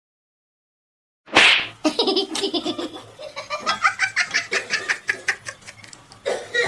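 Silence for about a second, then hearty laughter in quick, repeated bursts, high-pitched like a child's.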